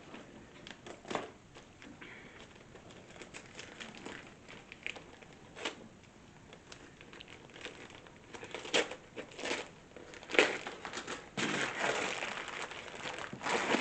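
Gift wrapping paper being crinkled and torn as a present is unwrapped: scattered crackles that grow busier and louder in the second half.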